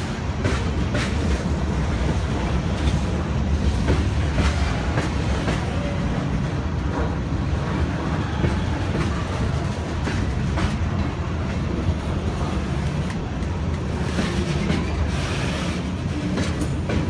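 Freight cars of a passing CSX train, gondolas and then bulkhead flatcars, rolling by at a grade crossing. A steady low rumble of wheels on rail, with scattered clicks as the wheels cross rail joints.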